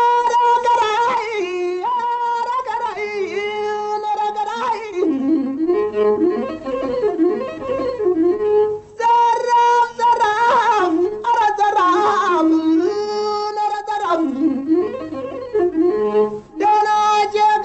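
Music: a bowed string instrument playing a slow melody of long held notes broken by wavering, ornamented runs, with a couple of short breaks.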